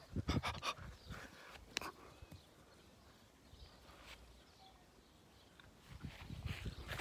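A small dog panting, with a cluster of sharp knocks and rustles in the first second.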